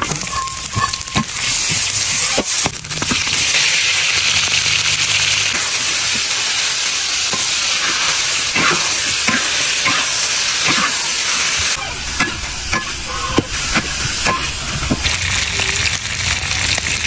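Food sizzling in hot oil in a large steel wok as it is stir-fried, with a steady hiss throughout. A metal spatula scrapes and clicks against the pan again and again.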